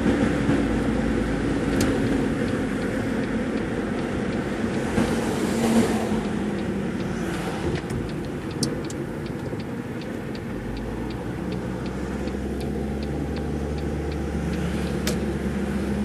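A car's engine and tyre noise heard from inside the cabin while driving. Through the middle stretch a turn signal ticks evenly, about three ticks a second, and the engine's low hum grows stronger about two-thirds of the way in.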